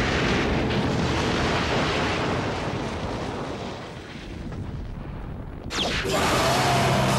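Cartoon blast sound effect for a psychic shockwave attack: a long, noisy, explosion-like rush that fades over about five seconds. A sudden loud new burst comes in near the end, with music tones under it.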